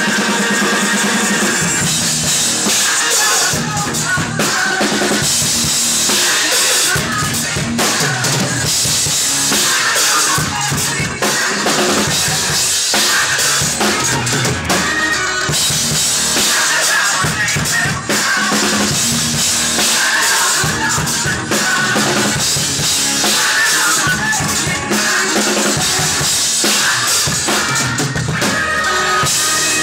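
Tama drum kit with clear acrylic drums played continuously, bass drum and snare hits under steady cymbals.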